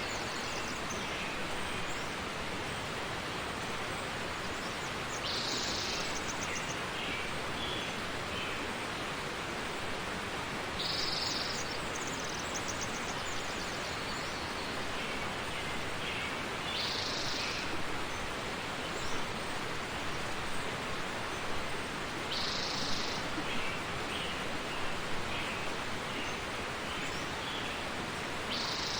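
Short high-pitched animal call repeating about every six seconds over a steady hiss, each call followed by a few faint chirps.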